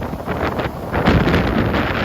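Strong wind buffeting the microphone in loud, uneven gusts, over the wash of surf breaking on the beach.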